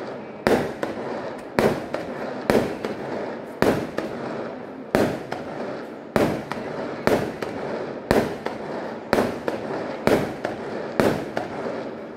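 Aerial fireworks going off in a steady volley, a sharp bang about once a second, with crackling between the bursts.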